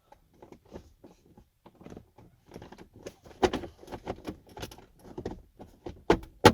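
Plastic dash compartment panel being worked back into a pickup's dashboard by hand: irregular plastic clicks, knocks and rattles, ending in two sharp loud snaps as it clicks into place.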